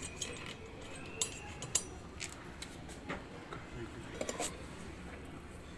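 Scattered light clicks and metallic clinks, about a dozen irregular taps: hand tools and small metal parts being handled during repair work.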